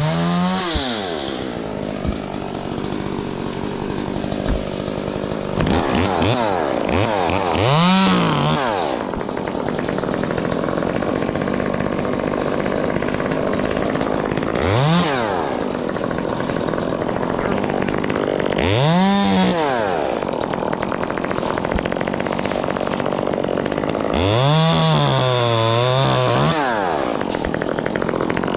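Chainsaw idling and being revved up and let back down about five times, the last and longest rev held for a couple of seconds near the end with its pitch dipping and climbing again.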